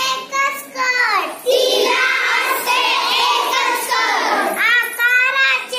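A group of young girls singing a children's song together in chorus.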